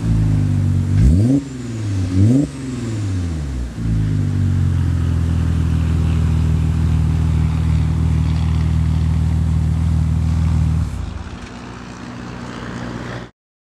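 Audi B5 RS4's twin-turbo V6 through a Milltek exhaust with catless 3-inch downpipes, heard at the tailpipes. Two sharp throttle blips about a second apart, then the engine is held at a steady speed for several seconds before dropping quieter near the end and cutting off.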